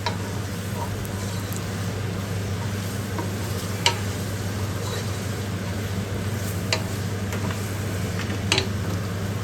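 Mutton pieces sizzling as they fry with ginger-garlic paste in a pot, stirred with a spoon that clicks against the pot three times, over a steady low hum.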